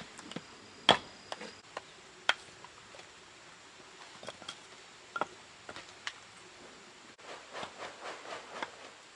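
Firewood being split: a few sharp, separate wooden knocks and cracks, with a quick run of lighter ticks and cracks near the end.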